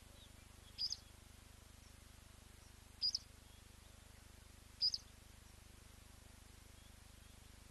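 Blacksmith lapwing giving its sharp, metallic 'tink' call three times, each a quick double note, about two seconds apart, over faint steady background noise.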